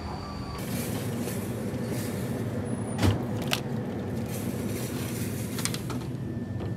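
Train ride noise cuts off just after the start, giving way to a steady hum at a convenience-store drinks fridge as a plastic drink bottle is taken from the shelf, with a sharp clunk about three seconds in.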